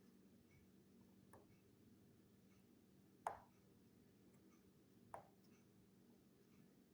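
Near silence with a few faint, sharp clicks about two seconds apart.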